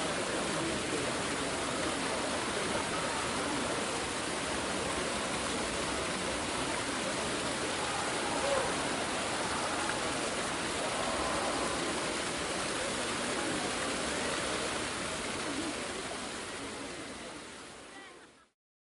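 A large crowd's murmur: many voices blend into a steady wash of chatter, fading out near the end.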